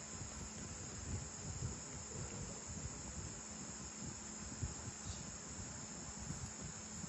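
Faint background: a steady high-pitched hiss with soft, irregular low rumbles from a phone being handled.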